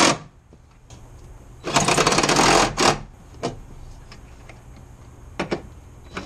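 Cordless power driver running for about a second, starting near two seconds in, as it runs down and tightens a bolt on the reservoir mount. A couple of light clicks follow.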